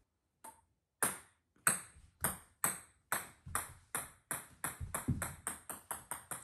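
Plastic ping-pong ball bouncing on a hardwood floor: a run of sharp, high clicks that come faster and closer together as the ball settles.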